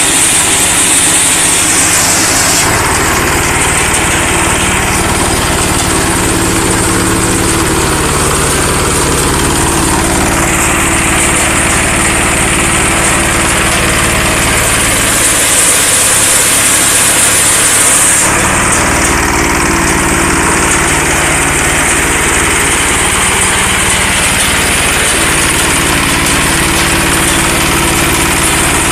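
Single-cylinder diesel engine running a hemp decorticator, a steady loud engine run. A high hissing rush rides over it for the first couple of seconds, while hemp stalks are fed through the beating drum, and again for a few seconds a little past halfway.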